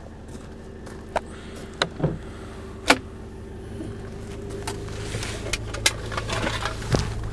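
Pickup truck canopy's rear hatch being opened, with a sharp click about three seconds in, followed by knocks and clatter of gear being handled in the truck bed, over a steady low hum.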